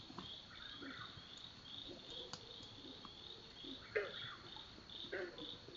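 Night chorus of high-pitched chirps, evenly repeated at about two a second. Under it are scattered short, soft rustling sounds, the loudest a sharp one about four seconds in.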